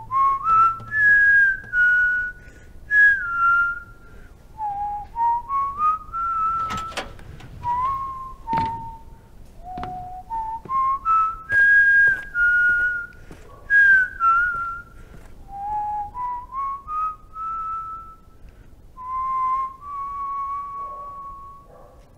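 A person whistling a slow, pure-toned melody in short phrases: notes climb stepwise, then fall back, and the phrase repeats, ending on one long held note. Two sharp knocks come about seven and nine seconds in.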